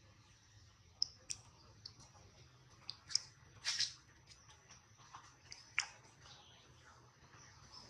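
Faint, irregular wet clicks and smacks of a newborn macaque suckling at its mother's nipple, with a couple of louder smacks in the middle.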